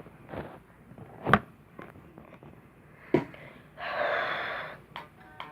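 Two sharp knocks about two seconds apart, then a breathy one-second hiss like a forceful exhale, and a guitar string just beginning to ring at the very end.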